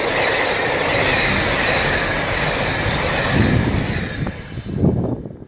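KiHa 261 series diesel express train passing: a loud rush of wheel and rail noise that fades away over about four seconds as the last cars go by. A couple of low thumps near the end.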